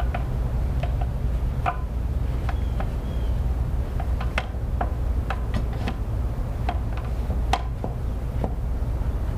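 Wheel brush scrubbing the inside of a wet alloy wheel, with irregular clicks and taps as the brush knocks against the spokes, over a steady low hum.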